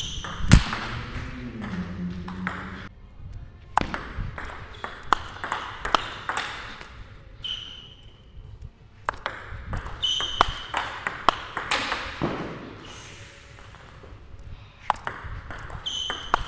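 Table tennis rally: a plastic ball being struck by rackets, one of them on a DHS Hurricane King Wang Chuqin blade, and bouncing on the table in a quick click-clack pattern, in several short runs with brief pauses. Some bounces leave a short high ping.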